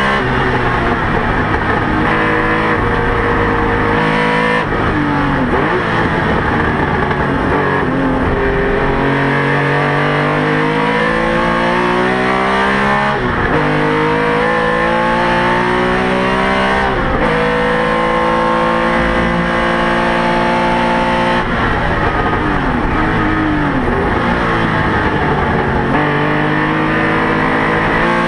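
Porsche 911 RSR's flat-six engine heard from the cockpit at racing speed, revving up through the gears with sharp drops in pitch at each upshift, and falling revs on downshifts into corners.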